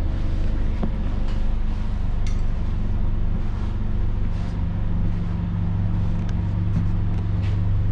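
Steady low hum of the Scania Fencer F1 bus with its machinery running, heard inside the passenger cabin, with a few faint clicks.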